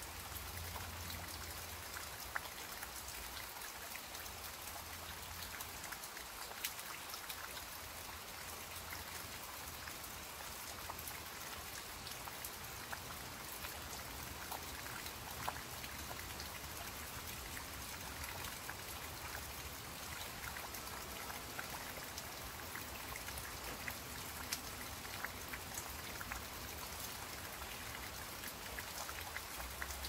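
Steady rain falling on garden foliage: an even hiss of rainfall dotted with the patter of individual drops, and now and then a single louder drip.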